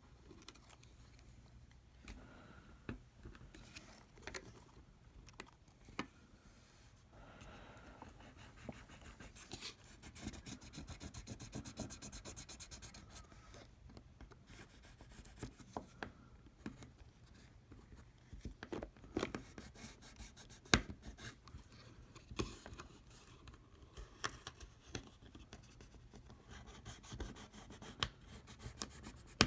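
Faint scraping, scratching and small sharp clicks of a pry tool working an iPhone 7 Plus battery loose, its adhesive strips having torn. There is a longer stretch of rasping about ten seconds in and a sharper click about two-thirds of the way through.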